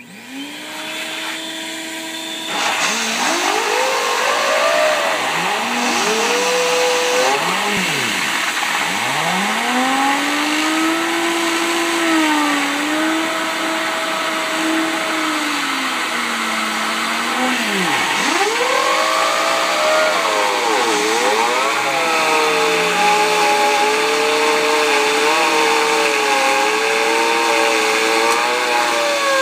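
A child's homemade imitation of a tornado siren: a wailing tone that swoops slowly up and down, with long rises, holds and falls like an air-raid siren. It runs over a steady whirring hum and hiss that starts about two seconds in.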